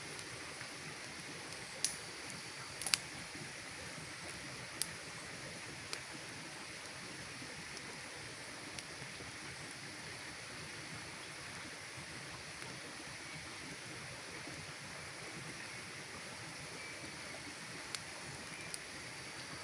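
Campfire burning with a steady soft hiss, broken by sharp crackling pops from the wood: several in the first six seconds, then two more near the end.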